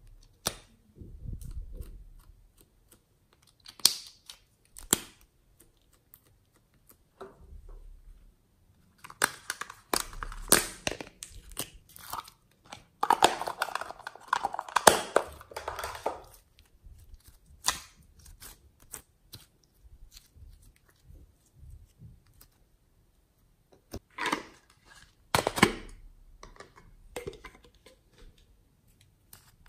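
Hard plastic being handled and pried apart: highlighter markers and a small plastic box clicking, cracking and snapping. There are a few sharp clicks, then a long busy stretch of crackling and crinkling in the middle, then two more loud snaps near the end.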